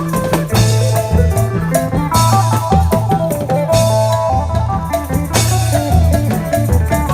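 Isan phin band playing: a steady drum-kit beat and a stepping bass line under a melody line.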